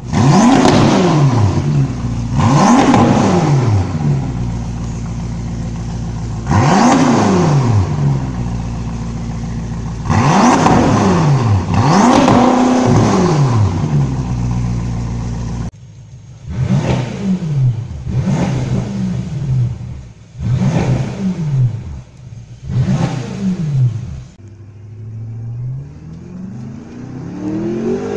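BMW M5 F10's twin-turbo 4.4-litre V8 revved loud through an Eisenmann aftermarket exhaust: about ten sharp blips of the throttle, each rising and falling in pitch. Near the end the engine pulls in one longer, steady rise in pitch.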